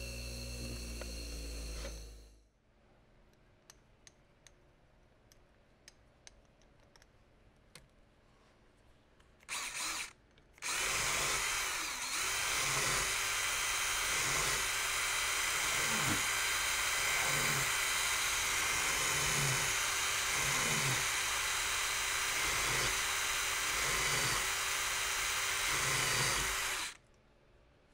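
A bench grinder runs for about two seconds and stops abruptly. After a few quiet seconds of light clicks and a brief blip, a cordless drill spins steadily for about sixteen seconds, turning a welded-up screw head against a flat file, with a file stroke about once a second, to bring the head down to diameter.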